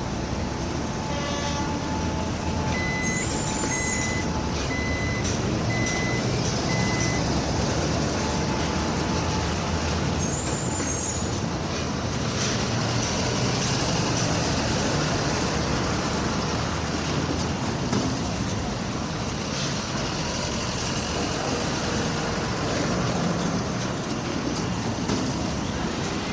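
Construction-site din of heavy machinery and trucks running steadily, with a reversing alarm beeping five times a few seconds in.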